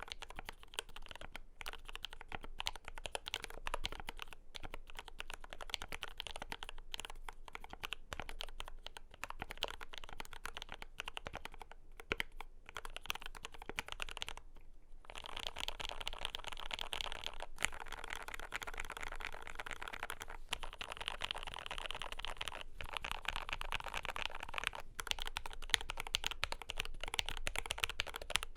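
Continuous typing on a Glorious GMMK Pro custom mechanical keyboard with lubed JWK Lavender linear switches and PBT doubleshot Cherry-profile keycaps: a dense run of keystroke clicks with a brief pause about halfway through.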